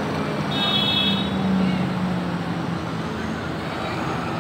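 Street traffic with vehicle engines running, a steady low hum over road noise, and crowd voices underneath. A brief high-pitched tone sounds about half a second in.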